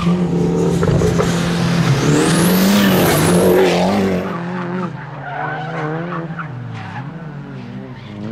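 Competition car driven hard around a tight corner, its engine running high with tyres squealing and wavering in pitch. It grows quieter after about four seconds as the car pulls away.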